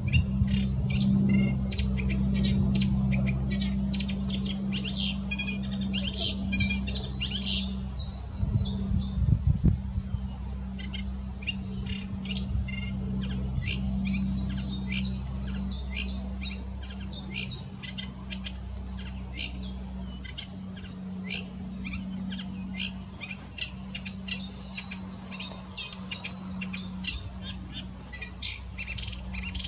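Eurasian reed warbler singing: a long, chattering run of quick repeated notes that comes in denser bursts and then thins out. A steady low hum runs underneath.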